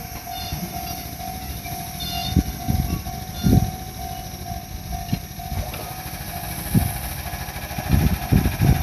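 Railway level-crossing warning bell ringing in a rapid, even repeat of one tone, while a slow train's wheels thud heavily over rail joints now and then, loudest about three and a half seconds in and in a cluster near the end.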